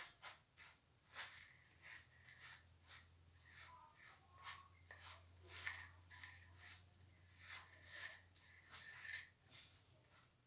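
Fingers rubbing and tossing dry chapati crumbs and flour in a steel bowl: faint, irregular rustling and scraping strokes, over a faint low hum.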